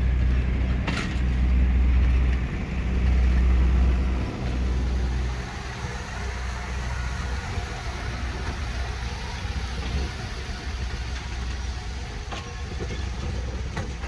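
Diesel locomotive engine running with a deep, steady rumble, louder for the first five seconds or so and then settling to a quieter, even idle.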